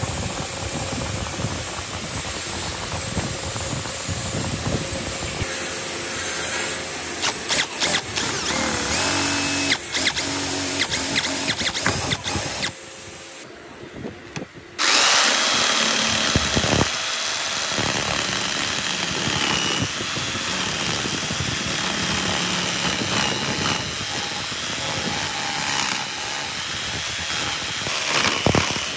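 Mixed workshop noise with scattered clicks, then a short lull. A Makita 4328 jigsaw starts about halfway through and runs steadily with a high whine, its blade cutting a circle out of a wooden board.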